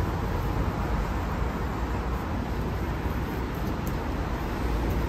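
Steady rumble and hiss of road traffic going by, with no distinct events.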